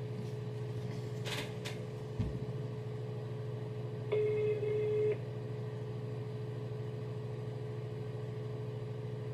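Telephone ringback tone heard while a call waits to be answered: one steady beep about a second long about four seconds in, over a constant low hum, with a soft thump about two seconds in.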